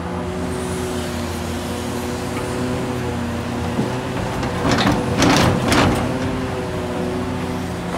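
Hitachi Zaxis 670LCR excavator's Isuzu six-cylinder diesel engine running steadily with its hydraulics. About five seconds in, a bucketload of red earth pours into a truck bed, a loud rush lasting about a second and a half.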